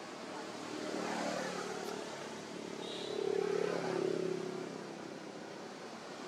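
Engine of a passing motor vehicle, swelling to its loudest about three to four seconds in and then fading, over a steady outdoor hiss.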